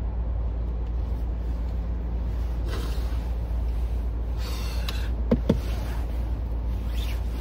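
A car idling with the defroster running, a steady low rumble throughout. Clothing rustles as a seatbelt is pulled across, and about five seconds in two sharp clicks sound as the seatbelt buckle latches.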